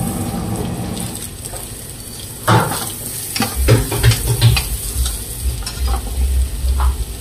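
Diced carrots frying in hot oil in a metal pan, with a steady sizzle. From a couple of seconds in, a steel spoon stirs them, knocking and scraping against the pan many times.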